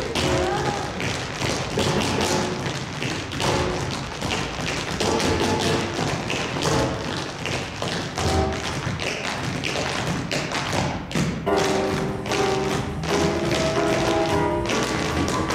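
An ensemble of four tap dancers' shoes striking the stage floor in quick, syncopated rhythms of taps and heavier stamps, over recorded music carrying a melody.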